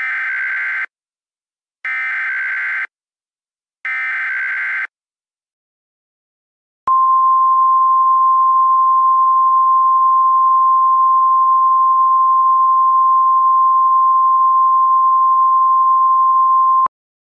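Emergency Alert System signal: three short bursts of buzzy digital data, about two seconds apart, then a single steady attention tone for about ten seconds that cuts off abruptly. This is the header and alert tone that announce a new emergency message.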